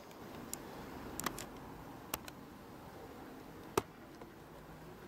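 A few scattered short, sharp clicks and taps over a faint steady outdoor background, with a small cluster about a second in and the loudest single tap about three-quarters of the way through.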